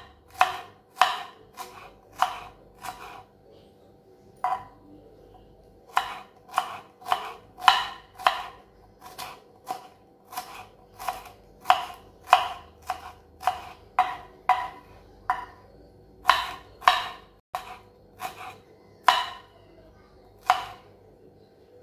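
Kitchen knife slicing shallots on a wooden cutting board: sharp taps of the blade striking the board, roughly one or two a second, with a few brief pauses.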